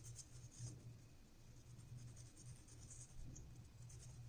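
Faint, irregular scratchy swishes of a shaving brush working lather over the cheek and neck, with a low steady hum underneath.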